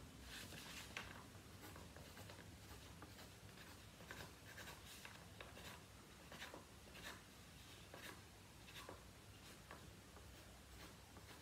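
Faint, scattered scratches of writing on paper, marking a sheet on an upright piano's music desk; otherwise near silence.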